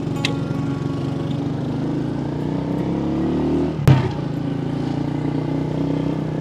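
Small motorbike engine running steadily while riding, rising in pitch as it speeds up a little past the middle, with one sharp knock at about four seconds in.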